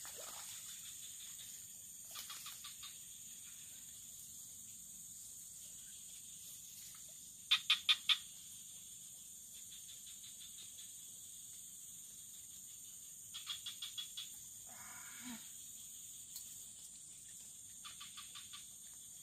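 Swamp night-and-day chorus: a steady high insect drone, broken a few times by short runs of four or five quick frog calls, the loudest run about eight seconds in.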